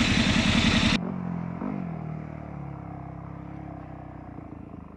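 Motorbike engine running at speed under loud wind hiss, cut off abruptly about a second in. Then a dirt bike's engine, its revs dropping and settling to a steady, quieter idle.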